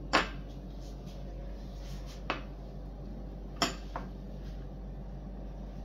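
Glass dessert bowls clinking as a hand sets them down and shifts them on a stone countertop: four short clinks, the first the loudest, the last two close together.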